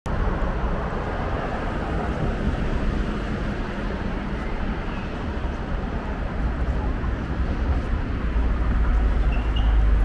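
City street ambience: a steady low rumble of road traffic, growing louder near the end.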